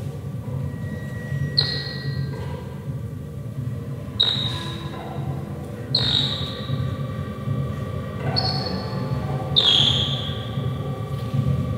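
Live experimental music: five sharp struck tones with a high ringing decay, spaced about two seconds apart, over a steady low drone, with a long held tone entering about halfway and ringing on.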